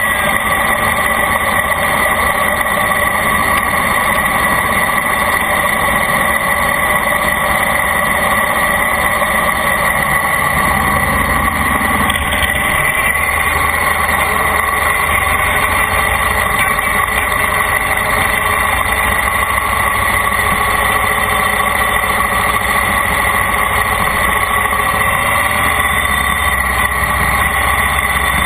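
Loud, steady vehicle engine noise that runs on without a break, with a constant drone and a low rumble underneath.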